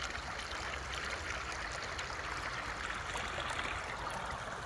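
Shallow stream water running steadily over rocks and stones.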